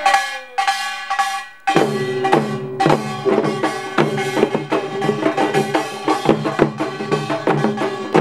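Korean pungmul folk percussion band of drums and gongs playing. A few ringing strikes come first, then the full band comes in about two seconds in with a fast, steady beat.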